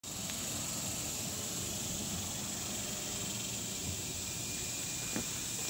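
Steady high-pitched insect buzzing over a low rumble.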